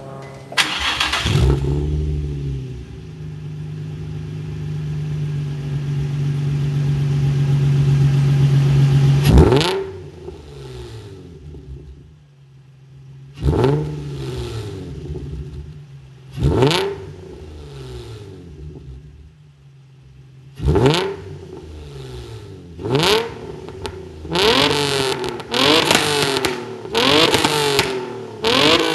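Nissan 350Z's 3.5-litre V6 revving through an aftermarket Injen exhaust: one quick blip, then a steady hold at raised revs for about seven seconds that drops away, followed by sharp throttle blips a few seconds apart and a rapid run of blips near the end.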